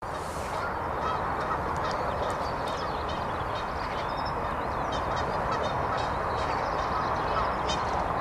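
Steady outdoor wind noise with birds calling, many short chirps and trills throughout.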